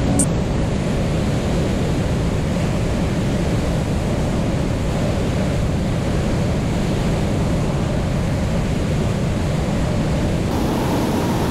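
Kitfox light aircraft in level flight: a steady rush of wind over an outside-mounted camera, with the engine and propeller droning underneath.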